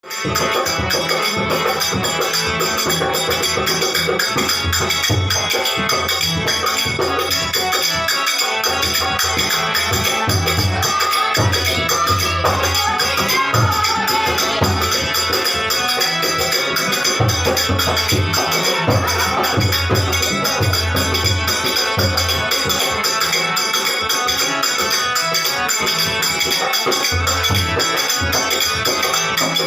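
Bhajan music, a Hindu devotional song, with a fast, steady jingling percussion rhythm over repeating bass notes.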